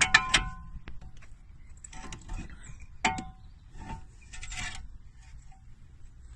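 Metal clinks and scraping as a brake caliper is pulled off its mount: a sharp ringing clink at the start and another about three seconds in, with rattling and scraping between.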